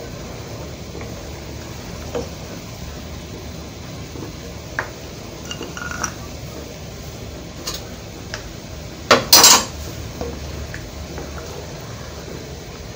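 Wooden spatula stirring and scraping thick milk cream, thickened with cornflour, around a nonstick frying pan, over a steady hiss. Light clicks of the spatula against the pan come every second or two. About nine seconds in there is a louder double clatter.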